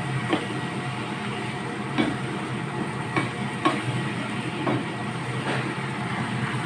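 Meat sizzling in a sauced frying pan while a wooden spatula stirs it, knocking and scraping against the pan at irregular intervals.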